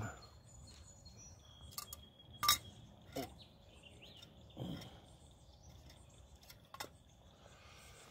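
Quiet outdoor ambience with faint bird chirps. A few sharp clicks and soft bumps come through, the loudest click about two and a half seconds in.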